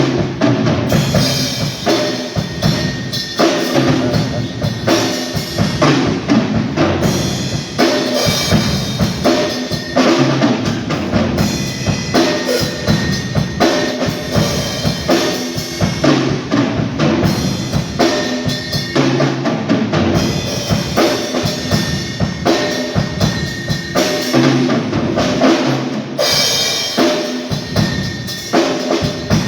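Live drum kit played during a band soundcheck: kick and snare keep a steady beat with cymbals, and sustained notes from other instruments sound underneath.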